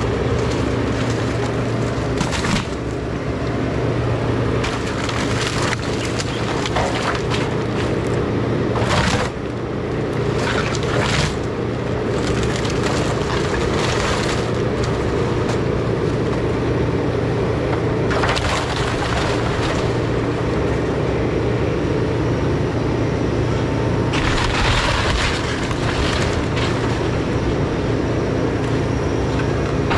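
Takeuchi TB2150 excavator's diesel engine running steadily under load while its arm tears down a house. Timber and roofing crack, break and crash down repeatedly, with a longer run of crashing near the end.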